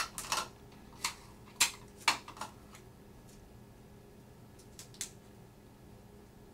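Clear adhesive tape pulled from a desk tape dispenser and torn off, a quick series of short rips and clicks over the first two and a half seconds, then a couple of softer clicks about five seconds in as the tape is pressed around a small plastic test dish to seal its lid.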